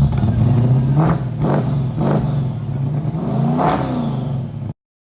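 A car engine running with a steady low rumble and several short revs of the throttle, cutting off suddenly near the end.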